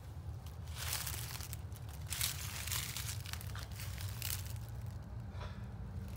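Footsteps crunching through dry leaf litter, an uneven stride of roughly one step a second, over a steady low rumble.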